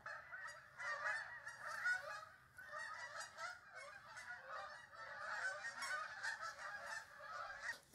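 A flock of geese honking: many short, overlapping calls, fairly faint.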